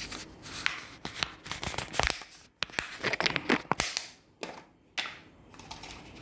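Crinkling and rustling of something being handled, with irregular sharp clicks and taps; it is busiest in the middle and thins out near the end.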